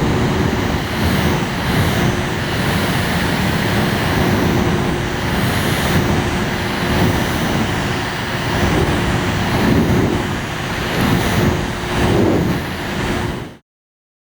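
Small electric fan running steadily: a rushing of moving air with a faint steady hum, which cuts off suddenly near the end.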